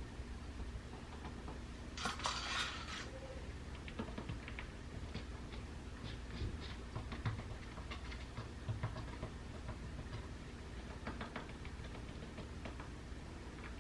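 Scattered light clicks and taps of paint cups and tools being handled, with a brief scraping rush about two seconds in, over a steady low hum.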